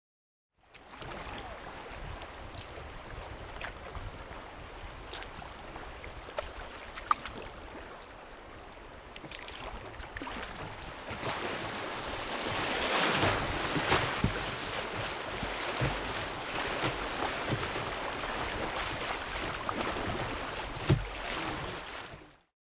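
River water rushing and splashing around a kayak running small rapids, getting louder about halfway through as it moves into rougher water. Wind buffets the microphone, and there are a few sharp knocks, the loudest near 7 and 21 seconds.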